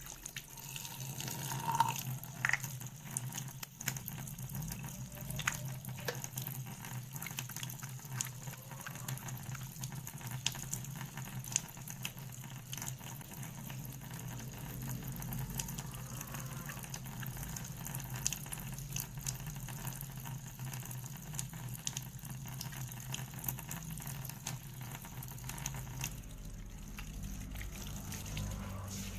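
Water running from a tap into a sink, with many small splashes and a steady low hum beneath it.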